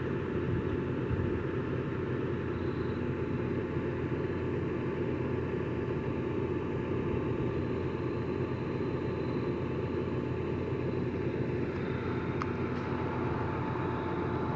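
A steady low mechanical hum, like an engine running, with a thin steady whine above it.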